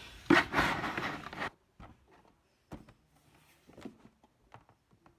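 Handling noise: a loud rustle lasting about a second, then scattered faint taps and clicks.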